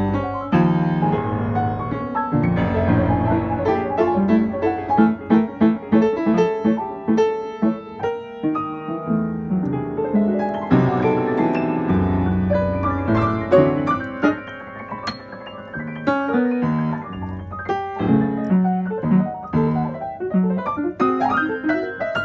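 Upright piano played in a fast, dense classical passage: quick runs of notes over held bass notes, loud in the first half and softer after about fourteen seconds.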